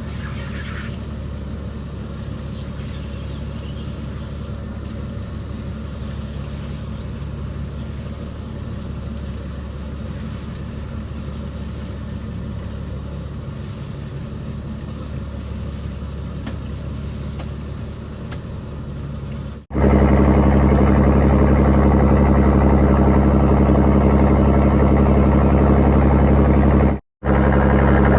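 Fishing boat's engine running steadily. About two-thirds of the way through, the sound jumps abruptly to a much louder, closer engine drone, which cuts out for a moment shortly before the end.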